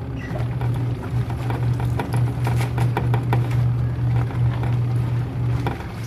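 Small portable washing machine agitating a load of laundry: its motor hums steadily under irregular slapping and churning from the clothes in the tub. The motor stops just before the end.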